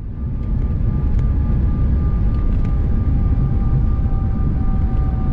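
Cabin noise of a CRJ-900 regional jet rolling out on the runway just after touchdown. A loud, steady rumble of jet engines and wheels on the runway rises about half a second in, with a faint steady whine from the engines above it.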